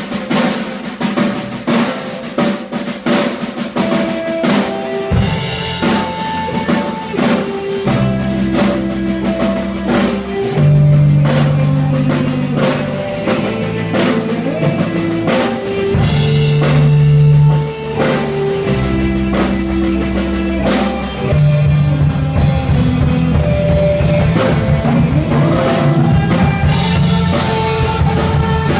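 Worship band playing the instrumental intro of a song: a drum kit keeps a steady beat over sustained pitched notes, with a bass line coming in about five seconds in and the band playing fuller from about two-thirds of the way through.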